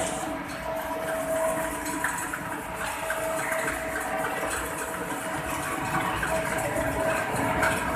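Petha gudai machine (for piercing ash gourd cubes) running steadily as cubes are fed through: a constant motor-driven whirr and hiss with a steady hum-like tone.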